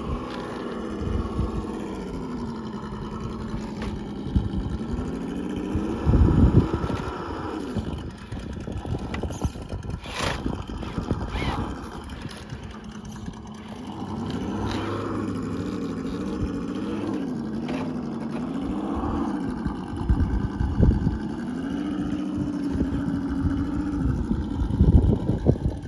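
Electric motor and gear drive of a radio-controlled scale crawler truck whining, its pitch rising and falling with the throttle as it crawls over rocks. A few loud low rumbles come and go, and there is a sharp knock about ten seconds in.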